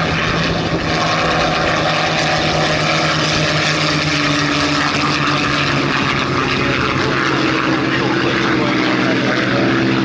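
Rolls-Royce Merlin V12 piston engines of Spitfires flying a low pass, a loud, steady propeller-engine drone.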